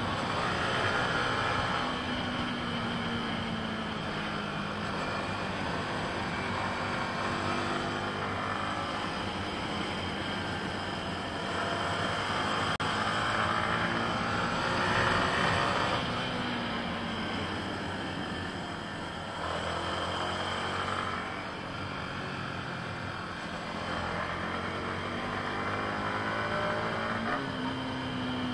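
Yamaha MT-15's 155 cc single-cylinder engine heard onboard while riding, the revs falling off and picking up again through gear changes and throttle changes, with a sudden jump in pitch near the end. Wind noise rises and falls with speed.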